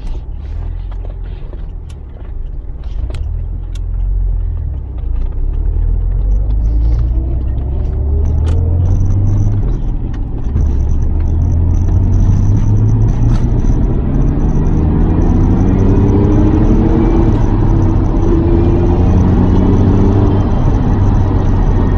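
Lotus Carlton's twin-turbo 3.6-litre straight-six pulling under acceleration: the engine note climbs, drops briefly at a gear change about ten seconds in, then climbs again and holds at a steady, louder drone.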